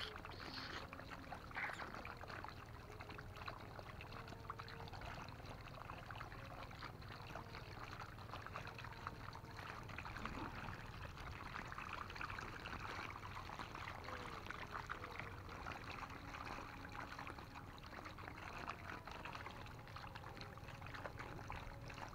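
Water trickling and crackling with many fine splashes from a dense mass of small fish crowded and flicking at the surface inside a net trap.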